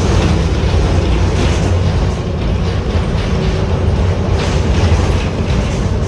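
Interior of a SORTA Metro city transit bus under way: a steady loud low rumble of engine and road noise, with the cabin rattling and clattering over the road.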